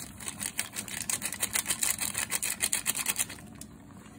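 Plastic seasoning sachet being shaken and tapped over a cooking pot to get the powder out: a quick run of crisp crinkly clicks that stops a little after three seconds in.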